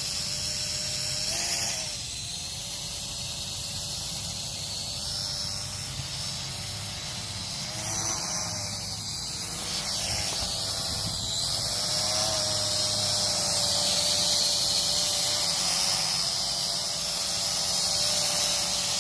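Quadcopter drone in flight, its propellers giving a steady whine that bends slightly in pitch a few times as the motors adjust against the wind. Wind rumbles on the microphone underneath.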